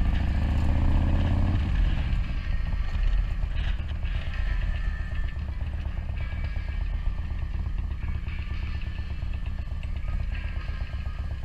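Harley-Davidson air-cooled V-twin with loud aftermarket pipes, revving up as the bike pulls away, then backing off about a second and a half in and rumbling along at low speed. Music from the bike's handlebar speakers plays faintly under the engine.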